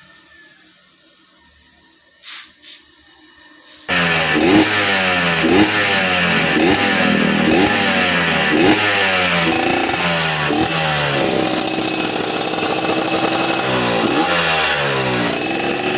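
A motorcycle engine starts suddenly about four seconds in and is revved in quick blips, about one a second, each falling back. It holds steadier for a few seconds, then is blipped again near the end. Two short clicks come before it starts.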